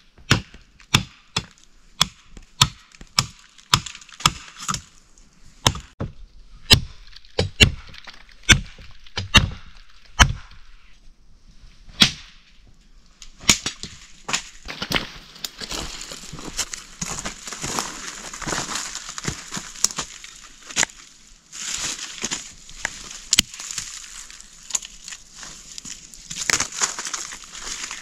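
Machete chopping into sapling wood, a steady run of sharp strikes about two a second. About halfway through, the strikes give way to rustling and crackling of leafy branches and twigs as the cut wood is handled.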